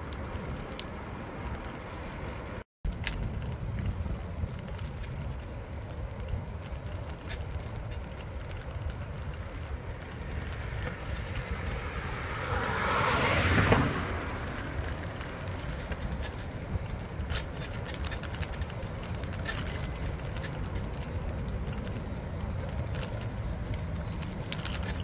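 Steady low rumble of wind on the microphone and bicycle tyres rolling, with scattered light clicks and rattles. About halfway through, a car passes, building up to the loudest point and then dropping away quickly. A brief dropout to silence comes about three seconds in.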